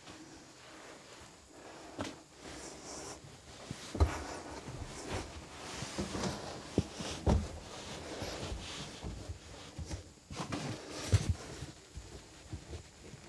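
Rustling and scraping of a molded truck carpet with felt backing being handled, pulled and rolled over the floor, with a few sharp knocks, the loudest about four seconds in and again around seven and eleven seconds in.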